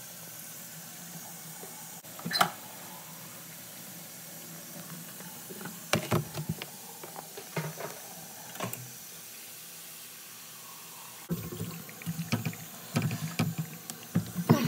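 Tap water running steadily into a sink and down its drain while the drain joint is checked for a leak. Occasional knocks, with a cluster of louder knocks and rustles from about 11 seconds in.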